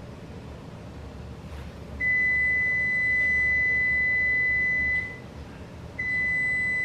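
Electric wall oven's timer alarm: one steady high-pitched beep about three seconds long, signalling that the bake time is up. After a second's pause a shorter beep follows as the oven's control panel is pressed.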